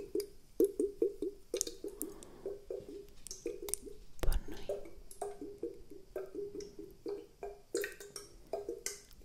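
Close-miked wet, drip-like plops in a loose rhythm of about two or three a second, each a short pitched 'tok' with a faint click. About four seconds in there is one louder low thump.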